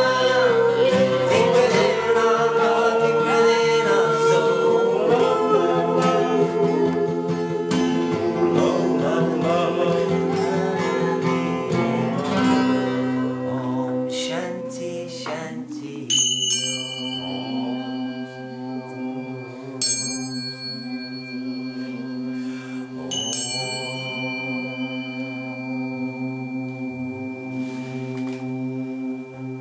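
A group sings a chant with strummed acoustic guitars, fading out over the first half. Then a small metal bell or chime is struck three times, a few seconds apart, each strike ringing on at a high pitch over a steady low drone.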